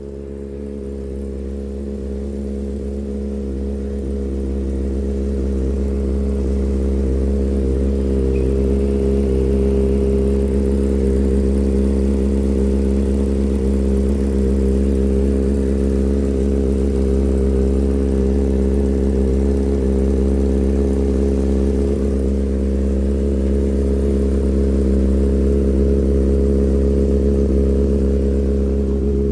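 2007 Honda CBR600RR inline-four running steadily through a CS Racing full exhaust, with the header tick and cam/timing chain rattle that the owner points to. It grows louder over the first several seconds, then holds an even pitch.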